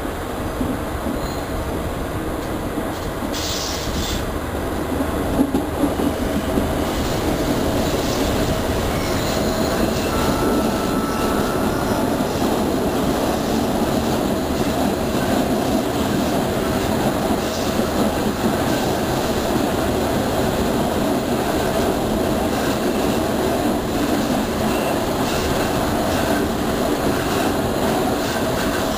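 Passenger train running at speed, heard from an open window of the moving car: a steady rumble and rattle of wheels on rail, with a brief high wheel squeal near the middle.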